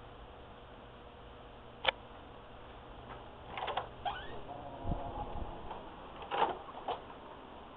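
A wooden office door being opened and walked through: a sharp click, then a cluster of handling sounds with a short rising squeak, a dull thud and a few more clicks.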